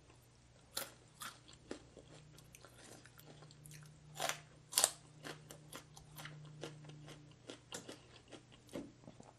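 Close-up chewing of a mouthful of crunchy food, with many irregular crisp crunches and wet mouth clicks, two louder crunches about halfway through.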